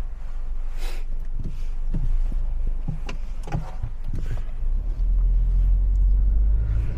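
A vehicle engine running with a low rumble that swells over the last two seconds, with a few light knocks and clicks over it.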